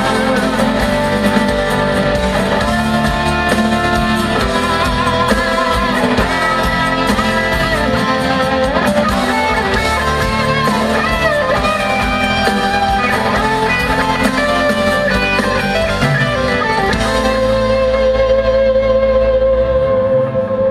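Live pop band playing an instrumental break: a guitar carries a wavering lead melody over bass and drums, ending on a sustained held chord for the last few seconds.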